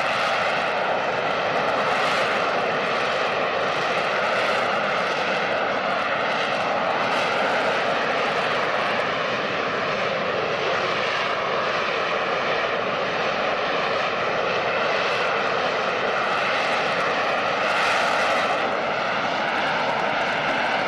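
AV-8B Harrier's Pegasus turbofan running at high power as the jet hovers in a vertical landing: a loud, steady jet noise that swells slightly now and then.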